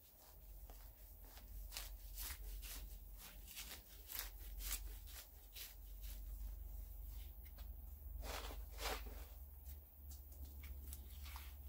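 Hands working potting soil and handling a plant: faint, irregular light scrapes and rustles, a few a second, with two fuller rustles about eight seconds in, over a steady low hum.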